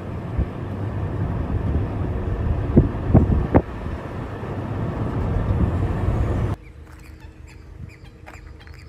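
Low rushing outdoor noise that builds over about six seconds, with a few short sharp chirps near the middle. It cuts off suddenly about six and a half seconds in, leaving a much quieter background with faint chirps.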